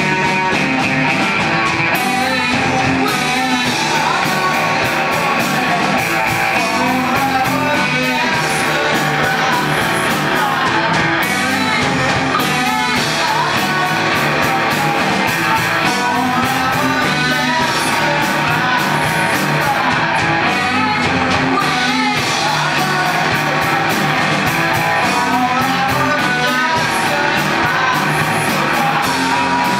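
Rock music: a band with guitar and singing, playing steadily.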